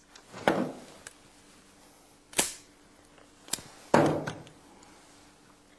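A revolver handled on a wooden tabletop: four sharp knocks and clicks, the first and last the loudest, each dying away quickly.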